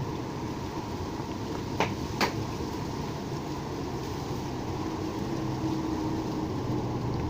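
Steady low rumble of road traffic mixed with wind, with two sharp clicks close together about two seconds in.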